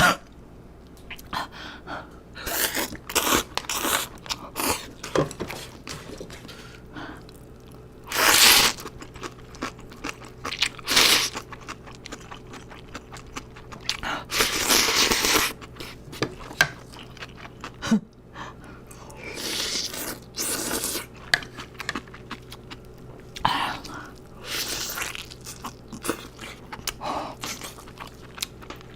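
A person eating close to the microphone: crunchy bites and chewing in irregular bursts, with a few longer crunching stretches.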